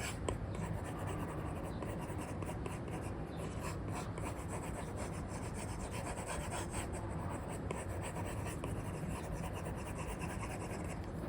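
Apple Pencil with an Elecom nib scratching and tapping across a paper-feel screen film on an iPad as strokes are sketched: many short, irregular ticks and rubbing strokes over a steady background hiss.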